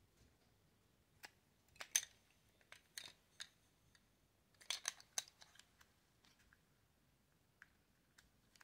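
Small plastic clicks and taps from handling an Olympus WS-852 digital voice recorder as its battery cover is slid shut and latched, with the loudest clicks about two seconds in and a quick cluster about five seconds in.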